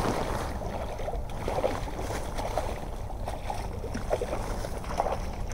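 Rustling and crackling of bank-side brush, grass and clothing as a person pushes through the vegetation, over a low rumble of wind on the microphone.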